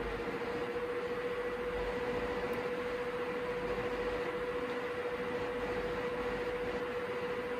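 Small-form-factor ITX gaming PC running under test, its cooling fans making a steady whir with a constant mid-pitched hum tone and fainter higher tones.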